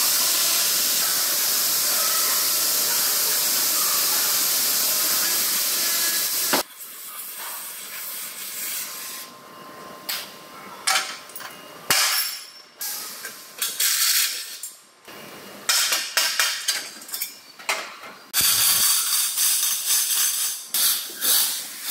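A gas cutting torch hissing steadily on the steel chassis rail, stopping after about six seconds. Scattered metal clinks and knocks follow, then near the end a loud stretch of hiss mixed with rattling metal.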